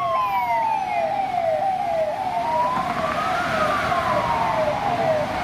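Ambulance siren sound: a slow wail rising and falling in pitch, overlaid with a faster siren that jumps up and slides down about twice a second.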